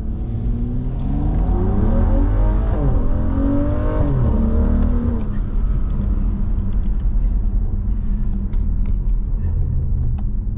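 BMW F30 335i's turbocharged N55 inline-six with a catless 3.5-inch downpipe, heard from inside the cabin with the windows up: it revs up hard under acceleration, the pitch climbing, dipping briefly at a shift and climbing again. About five seconds in the revs fall away as the throttle lifts, and the engine runs on at a steady low pitch.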